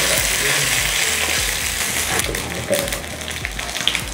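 A tempering of urad dal, cashews, dried red chillies and curry leaves sizzling in hot ghee and oil in a small kadai over a gas flame.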